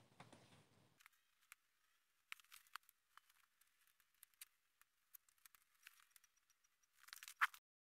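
Near silence, with a few faint scattered clicks and a short burst of louder clicking or rustling about seven seconds in.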